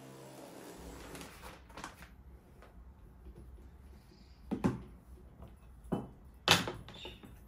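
A few separate knocks and thuds, three louder ones in the second half, over a faint low hum.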